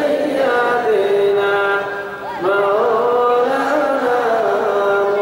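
A man singing a devotional chant into a microphone, holding long drawn-out notes with melodic turns, with a short breath about two seconds in.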